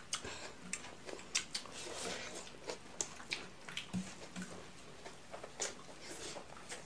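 A person eating rice and dal by hand: close-up mouth sounds of chewing and lip-smacking, heard as irregular wet clicks. Under them, her fingers mix rice on a plate.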